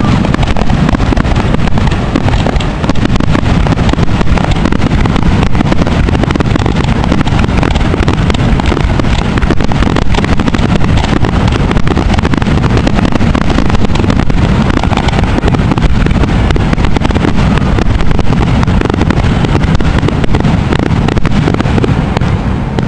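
Fireworks finale: a rapid, unbroken barrage of aerial shell bursts, loud and blending into a continuous deep rumble of cracks and booms. It eases off near the end.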